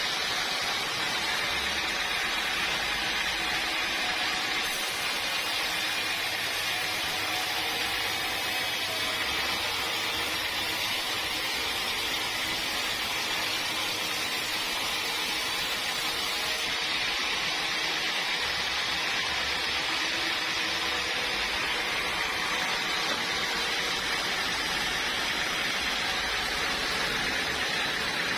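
Sawmill machinery running steadily, a continuous hissing mechanical noise with no break or change.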